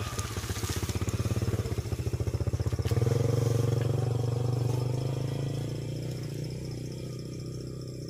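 A motor vehicle's engine running nearby with a rapid, even pulse, growing louder about three seconds in and then slowly fading away.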